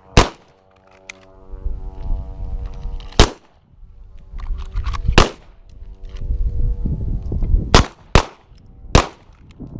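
Centre-fire pistol shots fired one at a time on a shooting line, about six sharp reports irregularly spaced a second or more apart, two of them close together near the end. A low rumble comes and goes between the shots.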